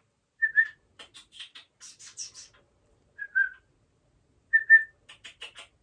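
A person whistling three short notes to call back a pet Java sparrow that has been frightened into flying off. Between the whistles come clusters of quick, high chirps from the sparrow.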